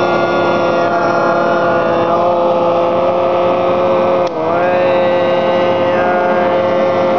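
A steady drone of two long held musical notes sounding together, with a brief dip about four seconds in before the notes carry on.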